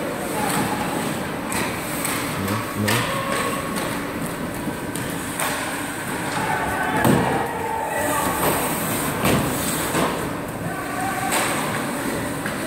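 Ice hockey play in an indoor rink: a steady wash of skates on the ice and arena noise, broken by several sharp thuds and knocks of play, with spectators' voices in the background.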